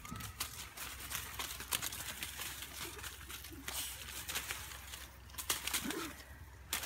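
Sticks tapping and rustling in a dry bush: an irregular run of crackles and snaps, with louder clusters near the end.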